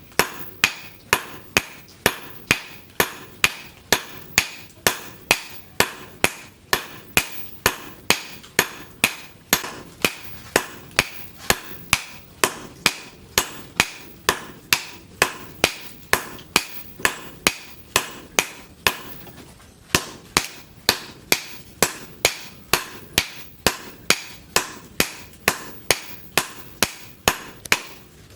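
Hand hammer blows on steel over an anvil, forging leaf-spring steel: a steady run of about two strikes a second, each with a short metallic ring.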